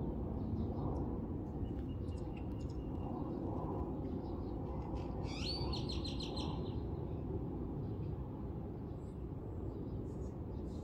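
Birds calling outdoors: scattered short chirps, and about five seconds in one bird gives a loud, rapid trill of quickly repeated notes lasting about a second and a half. Under them runs a steady low rumble.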